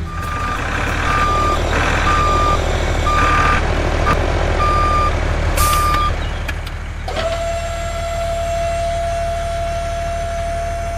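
A truck's reversing beeper sounds about once a second over a steady engine rumble for the first six seconds. About seven seconds in, the beeping stops and a steady, even-pitched whine takes over.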